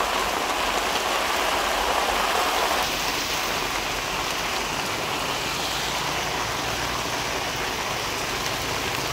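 Heavy tropical downpour pouring onto a wet road, a steady, dense hiss of rain.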